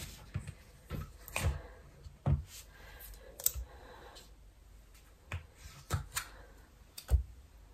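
Scattered light clicks and knocks as butter is added piece by piece to a kitchen scale, a few at irregular intervals.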